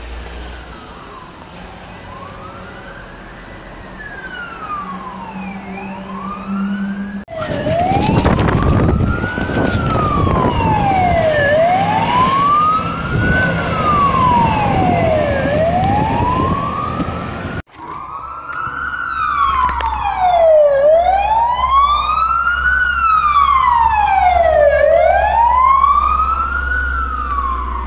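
Emergency vehicle sirens in wail mode, the tone sliding slowly up and down about every four seconds, in three clips cut one after another. In the middle clip a fire engine passes close with a heavy rumble. In the last clip two or more sirens wail slightly out of step, loudest of all.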